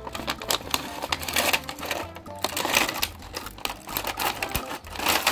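A cardboard toy box with a plastic window and blister tray being pulled open by hand: a quick run of crackles, crinkles and tearing, over background music.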